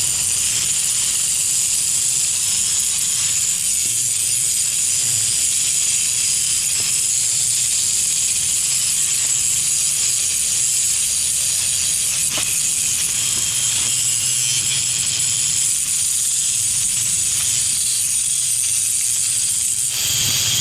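Angle grinder grinding weld spatter off welded steel feet: a steady, loud, hissing grind held without a break.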